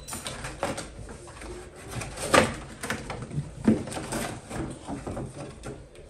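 Cardboard packaging being handled as a box is unpacked: scraping, rustling and knocks of cardboard and paper inserts, with two louder knocks about two and a half and three and a half seconds in.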